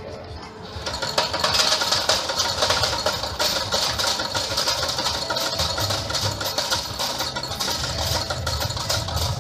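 Lightning Link Magic Pearl pokie machine sound effects: a loud, dense run of rapid clattering clicks that starts about a second in and keeps going.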